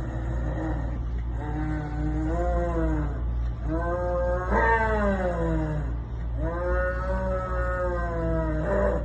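A cat yowling: three long drawn-out, wavering wails, one after another, over a steady low hum.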